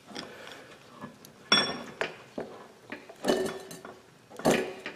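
Hand-lever grease gun being pumped to grease an air impact wrench: three sharp metallic clacks, the first about a second and a half in, the next two a little after three seconds and near the end, with lighter clinks between.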